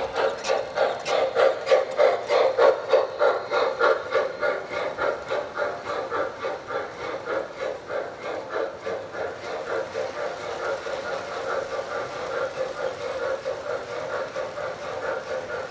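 MTH Proto-Sound 2 sound system of an O-gauge Santa Fe 2-10-4 Texas model steam locomotive giving rhythmic steam chuffs as it passes close by. After about six seconds the pulsing softens into a steadier rumble of freight cars rolling over the three-rail track.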